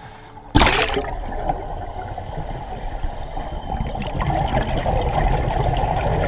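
Underwater bubbling and gurgling from scuba divers' exhaled air, heard through the camera housing. It starts abruptly about half a second in.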